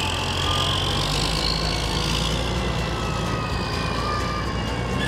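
Fire engine pulling away, its engine running with a steady low rumble and a faint high whine that rises in pitch in the first couple of seconds.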